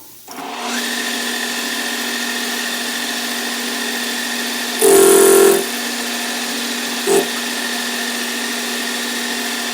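Chinese-made metal lathe running steadily with a cutting tool taking a heavy cut on a backhoe bucket pin, giving a steady whine. About five seconds in, a louder, higher screech lasts under a second, and a short one comes about two seconds later.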